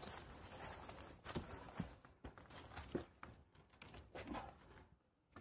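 Faint footsteps on a forest walking track, uneven, about one step a second, stopping shortly before the end.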